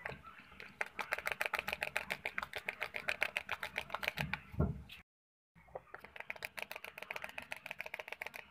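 Fork beating cake batter by hand in a bowl, clicking against the bowl in rapid, even strokes of about eight a second. The beating cuts out briefly about halfway, just after a dull knock.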